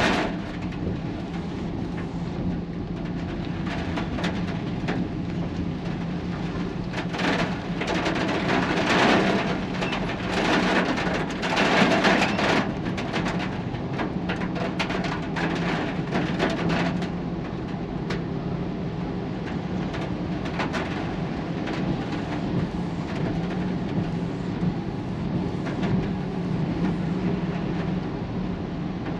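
Rain and wind with road traffic, a steady low hum underneath. The rushing noise swells several times in the first half, then settles to an even rush.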